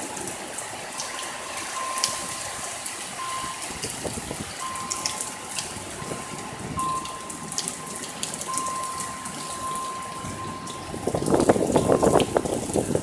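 Thunderstorm rain and wind: a steady rush of rain with many sharp drop ticks, and a louder gust about eleven seconds in. A faint thin tone comes and goes throughout.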